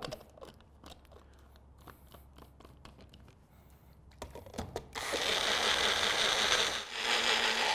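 Single-serve personal blender running at full speed for the last three seconds or so, blending coffee with ghee and coconut cream into a frothy emulsion. Before it, quiet clinks of jars and the blender cup being handled.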